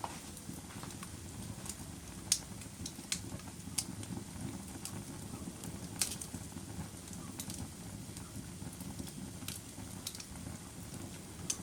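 Wood fire burning in a fireplace: a steady low rumble of flames with irregular sharp crackles and pops, the loudest about two seconds in and about six seconds in.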